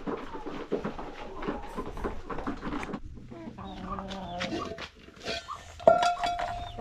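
Domestic chickens clucking, with a longer held call about three seconds in and a sudden loud call near the end.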